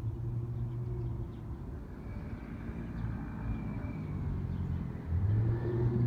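A vehicle running past with a steady low hum, joined by a faint high whine from about two seconds in.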